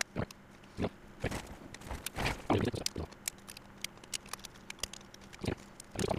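Tree supports snapping off a 3D-printed plastic mouse shell as they are broken away by hand: an irregular run of sharp plastic clicks and cracks, busiest about two to three seconds in.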